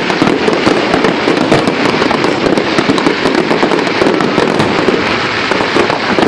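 Fireworks display crackling and popping continuously: many small bursts packed close together with no break.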